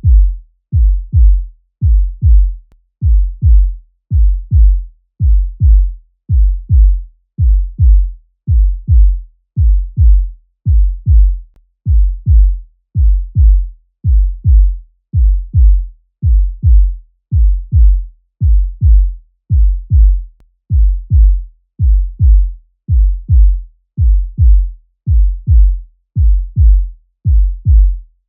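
Human heartbeat sound effect: each beat a deep double thump, repeating steadily at a little under one beat a second.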